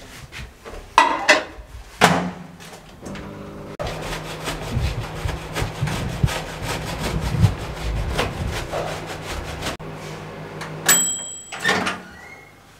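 Frozen homemade mozzarella grated on a metal box grater: quick, even rasping strokes from about four seconds in, lasting some six seconds. A few knocks come before it, and a brief high ring with a clatter comes near the end.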